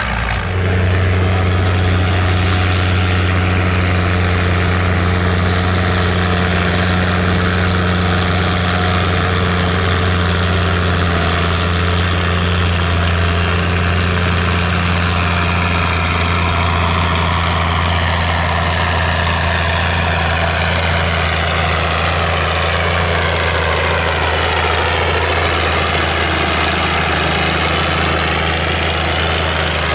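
Antique farm tractor engine running at a steady speed, a deep even drone that holds one pitch throughout.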